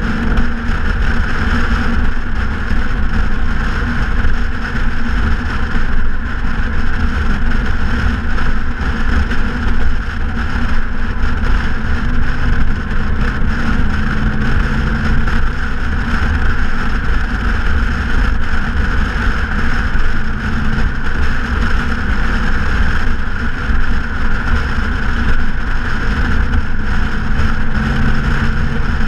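2014 Ford Mustang GT's 5.0-litre V8 through a straight-pipe exhaust, cruising at a steady, even engine speed with a constant low rumble, mixed with wind and tyre noise.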